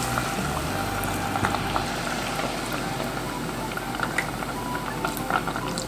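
Thin-battered Japanese whiting (kisu) tempura deep-frying in hot oil in a tempura pot: a steady sizzle and bubbling with scattered small crackles.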